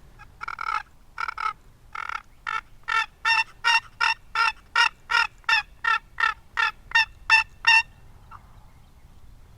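A long series of turkey yelps, about eighteen short raspy notes that quicken to a steady pace of nearly three a second, then stop about eight seconds in.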